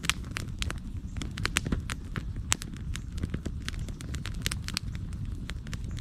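Campfire of split firewood logs crackling, with many sharp irregular pops over a steady low rumble.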